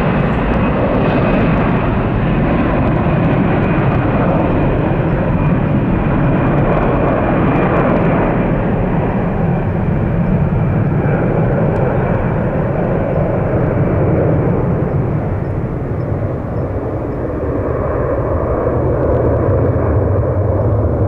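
Airbus A320-214's twin CFM56-5B turbofans at takeoff power, a loud steady jet roar with a thin whine on top. The higher part of the roar slowly fades as the airliner climbs away.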